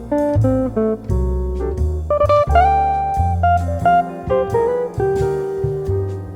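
Background café jazz music with guitar and a bass line.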